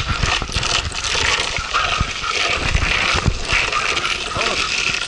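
Longboard wheels rolling over pavement: a steady rumbling rattle with small knocks from the road surface.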